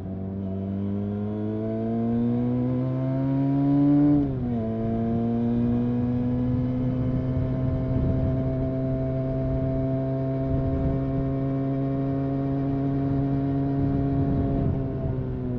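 Benelli 302S motorcycle's 300 cc parallel-twin engine through its stock exhaust, heard from the rider's seat. Revs climb for about four seconds, drop sharply once at a gear change, then hold steady at a constant cruise, and fall off as the throttle closes near the end.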